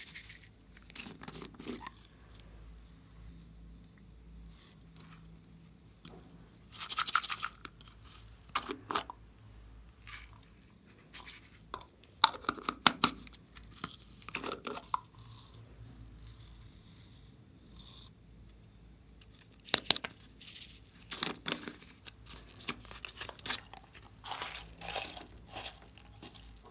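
Small plastic containers being handled and opened, with sharp clicks and snaps of lids and casings, and foam beads, sprinkles and glitter shaken out of them. A short rustling burst about seven seconds in is the loudest sound.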